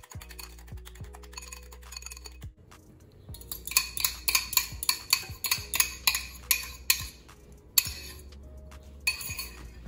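A fork clinking and scraping against a small metal bowl as beaten eggs are pushed out of it into a bowl of cooked macaroni. There is a run of quick clinks, about two or three a second, starting about three seconds in, then a few more near the end.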